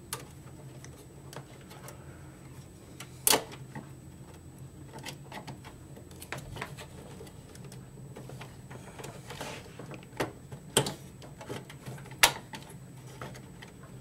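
Scattered clicks, knocks and rattles of hands handling parts inside an open low-profile PC case: graphics card, cables and sheet-metal chassis. The two sharpest clicks come about three seconds in and near the end, over a low steady hum.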